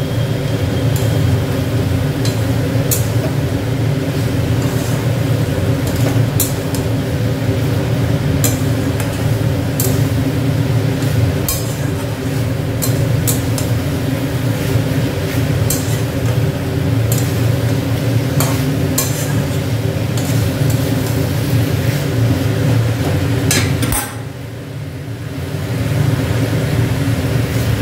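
Steel spatula stirring and scraping a thick chicken-and-potato curry in a metal kadai, with scattered clicks and taps of the spatula against the pan. A steady low hum runs underneath and dips briefly near the end.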